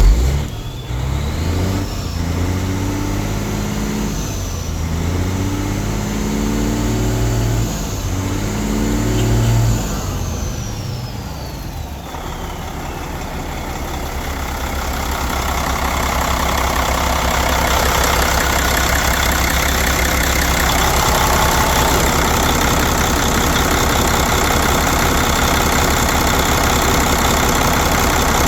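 Mercedes-Benz OM460LA inline-six turbo diesel engine revved up about three times in the first ten seconds, with a high turbo whine rising and falling away. It then settles into steady running.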